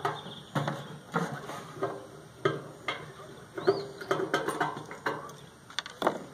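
Irregular metallic clatter and knocks as a turntable motor is worked loose from the sheet-metal underside of a microwave, with a bird call about halfway through.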